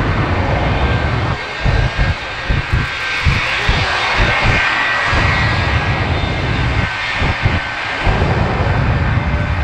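The Shockwave jet truck's three jet engines running with afterburner: a loud, steady roar with a thin high whine over it and uneven low rumbling pulses underneath.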